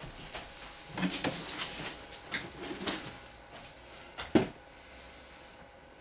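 Handling noises as a cardboard box is picked up and moved: scattered scuffs and rustles, then one sharp knock a little past four seconds in as the box is set down on the inflated vinyl float.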